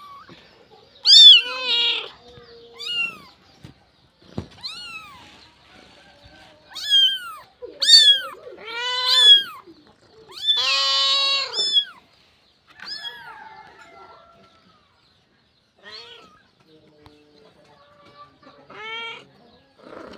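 A cat meowing over and over: short meows that each rise and fall in pitch, spaced a second or more apart, with one longer, louder meow about eleven seconds in and fainter ones near the end.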